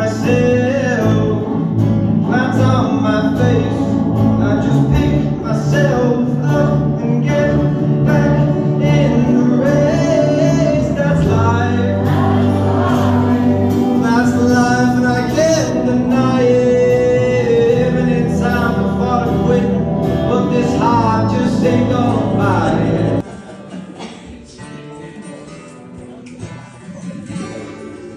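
A man singing lead with a live band of electric guitar, bass guitar and acoustic guitar. About 23 seconds in, the sound cuts abruptly to a much quieter recording of a guitar being played.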